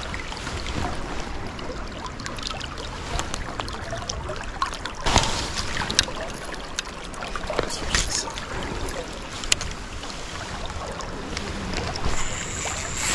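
Creek water running steadily, with several short splashes or knocks standing out above it.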